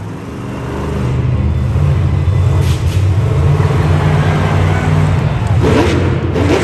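Monster truck engine running loud, building up over the first second and then holding at high revs.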